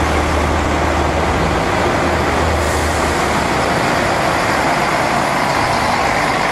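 Volvo B10M Mk2 single-deck bus's underfloor diesel engine running as the bus approaches and drives past close by. The low engine drone drops away about three seconds in, leaving steady engine and road noise.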